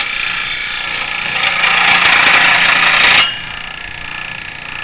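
Skil scroll saw with a 1.6-amp motor running, its reciprocating blade cutting into a wooden board. The cutting noise grows louder from about a second and a half in and stops sharply about three seconds in as the board comes off the blade, leaving the saw running steadily.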